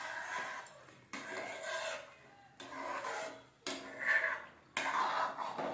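Long metal spoon scraping against a metal pot as it stirs a thick chicken leto, in about five rasping strokes roughly a second apart.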